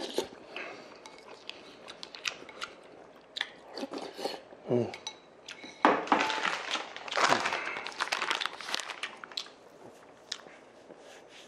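Close-up eating sounds: a spoon clicking and knocking against a bowl, chewing, and a louder stretch of tissue paper rustling partway through as a tissue is pulled out and used to wipe the mouth.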